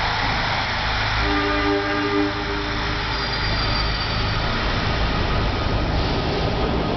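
SEPTA Broad Street Line subway train of Kawasaki B-IV cars pulling out of the station past the platform, its wheels and motors making a steady loud rumble. A short steady pitched tone sounds over it from about one to two and a half seconds in.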